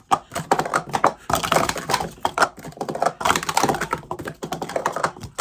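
Plastic Speed Stacks sport-stacking cups clattering quickly and continuously as they are stacked up and down at speed in a timed run.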